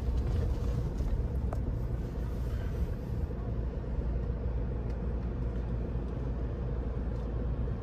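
Steady low outdoor rumble, with a faint steady hum above it and no distinct events.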